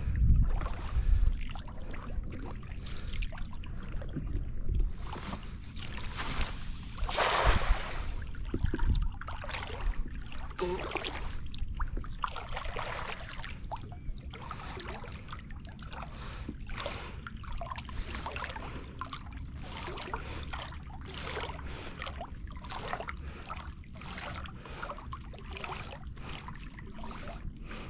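Water sloshing against the hull of a small wooden canoe in short, fairly regular splashes as it moves. There is a louder splash about seven seconds in, and a steady high whine underneath.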